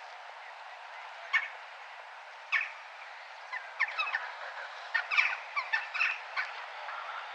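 Crow cawing: single caws about a second and two and a half seconds in, then a quick run of several caws. A steady hum of town noise runs underneath.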